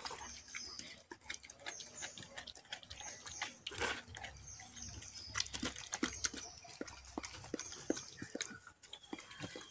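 Dalmatian mother licking and chewing at a newborn puppy, a rapid run of wet smacking and clicking sounds as she tears away the birth sac and cleans it.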